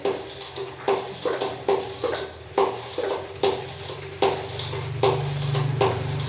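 Sharp knocks repeating about two to three times a second, each with a short ring at the same pitch; a low steady hum joins about two thirds of the way through.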